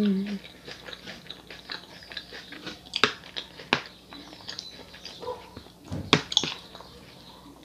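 Close-miked chewing of salad and rice, with wet mouth sounds and a few sharp clicks of metal cutlery against the plate, the loudest about three and six seconds in. A short hummed "mm" right at the start.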